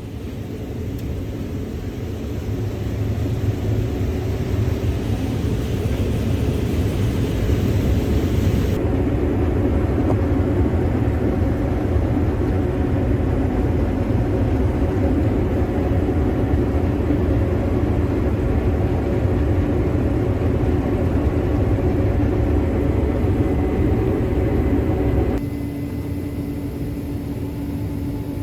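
Combine harvester running steadily while harvesting corn: a loud, steady low rumble and hum. The sound changes abruptly twice, about nine seconds in and again a few seconds before the end.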